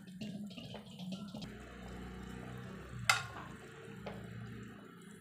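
Water with seasoning at a rolling boil in a steel pot, bubbling steadily over a low hum, with one sharp click about three seconds in.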